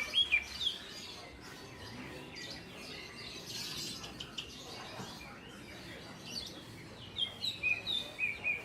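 Caged songbirds chirping in short, quickly repeated notes: a burst at the start and another near the end, with quieter scattered calls between, over a faint steady background hubbub.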